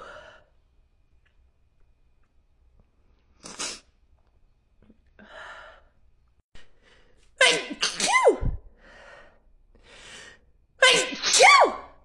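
A woman sneezing in a fit: two loud sneezes, one a little past halfway and one near the end, each with a cry that rises and then falls in pitch. A few short, quieter sounds come between them.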